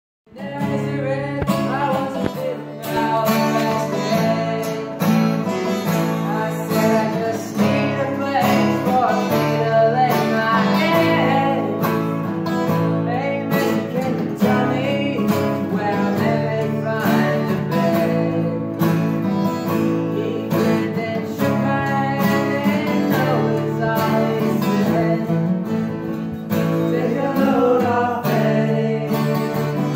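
Several acoustic guitars, one of them a twelve-string, strummed together in a steady rhythm, with a man singing over them.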